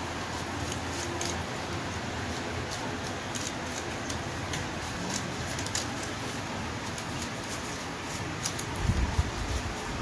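Paintbrush bristles scrubbing dust and grit off the sheet-metal base of an opened Brother typewriter: a run of short, irregular scratchy strokes over a steady background hiss, with a few dull bumps near the end.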